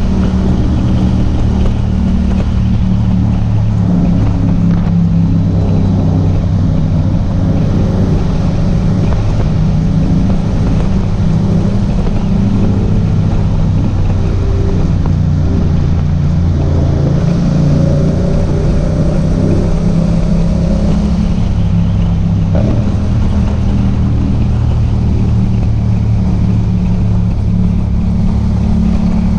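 Yamaha MT-07's parallel-twin engine running on the move, its note shifting up and down with the throttle, with a marked change about two-thirds of the way through.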